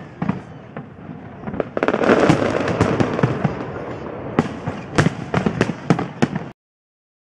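Fireworks display: aerial shells bursting in a rapid, irregular series of bangs. About two seconds in, the bursts run together into a dense, continuous spell, and then separate bangs return. The sound cuts off abruptly near the end.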